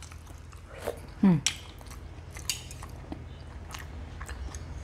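Small clicks of chopsticks against a ceramic soup spoon and the mouth sounds of biting into a shrimp-and-pork wonton. A short hummed sound comes about a second in.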